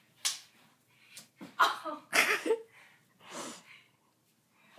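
A person's breathy exhalations and snorts in several short bursts, with a brief voiced sound about halfway through.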